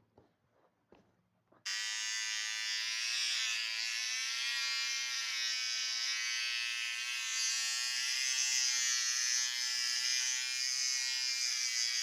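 The small electric motor of a handheld appliance buzzing. It switches on suddenly about two seconds in and then runs steadily, its pitch wavering slightly.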